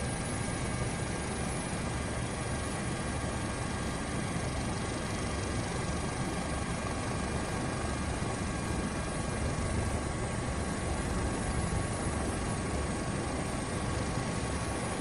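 Steady drone of aircraft engine and rotor noise, heard from aboard the aircraft filming from above, unchanging throughout.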